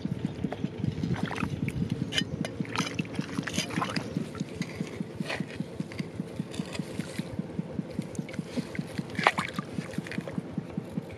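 Muddy water sloshing and splashing as hands and a small blade dig in a flooded rice paddy, with scattered sharp splashes over a rapid, even low pulsing.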